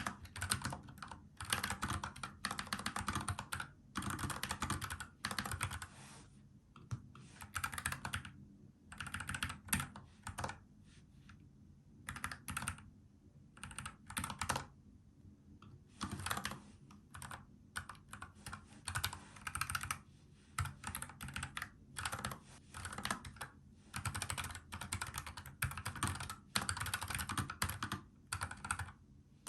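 Typing on a NuPhy Air75 low-profile mechanical keyboard with brown tactile switches: quick runs of key clicks in bursts, broken by short pauses.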